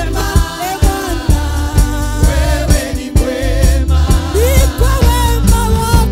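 Gospel praise-and-worship music: singing over bass and a steady beat.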